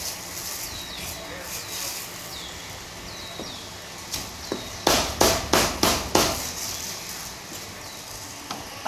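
Meat cleaver chopping roast meat on a thick wooden chopping board: a quick run of about seven sharp chops starting about four seconds in, then one more near the end.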